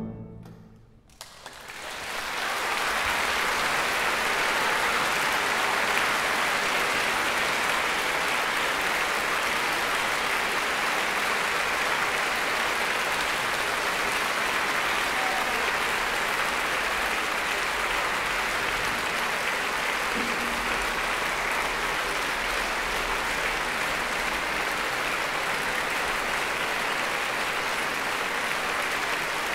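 Large audience applauding, rising quickly about a second and a half in after a brief hush, then holding steady.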